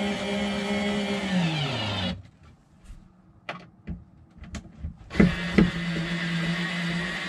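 Handheld electric drill motor running steadily, then winding down in pitch and stopping about two seconds in. A few clicks and knocks follow, and the motor starts up again about five seconds in and runs steadily.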